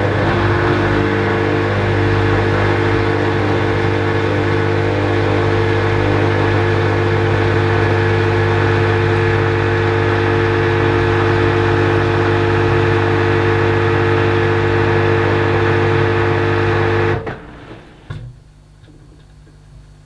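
Hoover Dynamic Next washing machine's drain pump running with a steady electric hum as it pumps the wash water out of the drum, cutting off suddenly near the end and leaving only a faint low hum.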